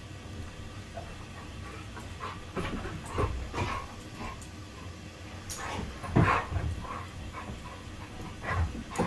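Two dogs play-fighting, trading short vocal play noises back and forth, with the loudest about six seconds in. These are loose, conversational play noises rather than harsh growling, which the owner takes as a sign that the play is friendly.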